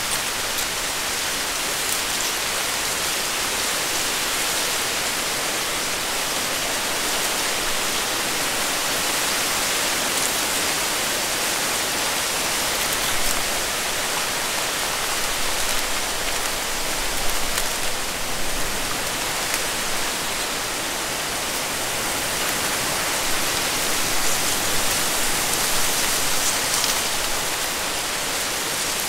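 Dense stand of reeds rustling in strong wind: a steady, even hiss of leaves and stems, with a few slightly louder swishes about halfway through and again later as a body pushes through the stalks.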